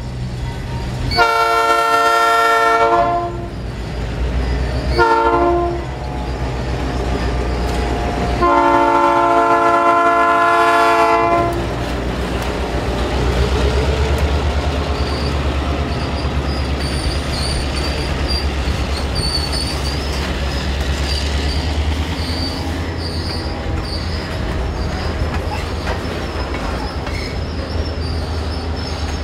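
Madison Railroad diesel locomotive sounding its horn: a long blast, a short one, then another long one. Its engine then rumbles past and the covered hopper cars roll by, with high wheel squeal coming and going.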